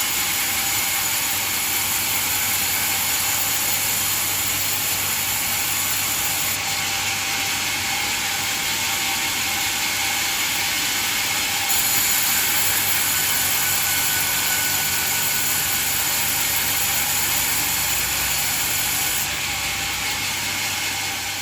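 Band sawmill running, a loud steady high hiss with thin whining tones above it. It shifts abruptly louder or quieter a few times and starts to fade near the end.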